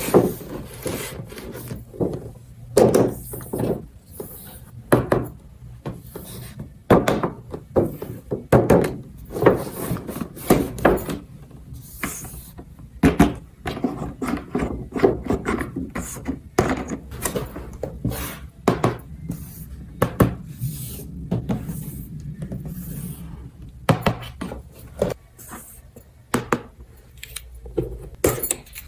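Toy pieces being handled and fitted together by hand: irregular clicks, knocks and rubbing, with no steady rhythm.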